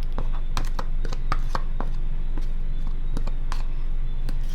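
Irregular small clicks and taps of containers and a utensil being handled while dry seasoning is portioned into jars, over a steady low hum.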